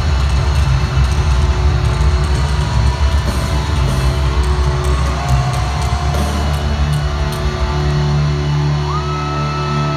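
Hard rock band playing live through an arena sound system, with heavy guitars and a dense, loud low end. A single high note starts near the end and is held for about two seconds.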